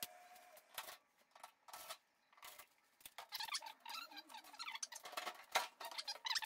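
Front bulkhead of a Samsung electric dryer being worked loose and lifted off the cabinet, giving scattered clicks and knocks. From about three seconds in there are wavering squeaks as parts rub.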